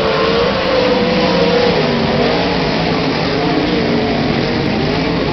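A pack of 410 sprint cars racing, their methanol-fuelled V8 engines running at speed, several engine notes rising and falling together as the cars lift and get back on the throttle.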